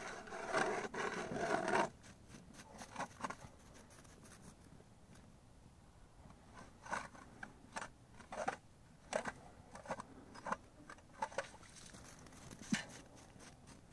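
Hand ice auger cutting through lake ice: gritty scraping and crunching from the blades, dense for the first couple of seconds, then broken into separate scrapes about once a second as the handle turns.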